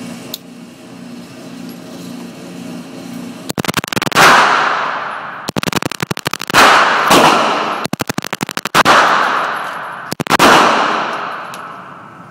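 Four bursts of rapid gunfire, each a quick string of shots followed by a long echoing decay. Before the first burst, about three and a half seconds in, there is a low steady hum.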